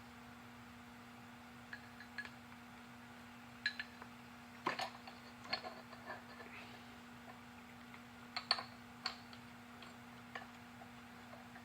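Irregular light clicks and clinks of small metal engine parts being handled during piston and connecting-rod assembly, the sharpest about five seconds in and a quick cluster near eight and a half seconds, over a steady low hum.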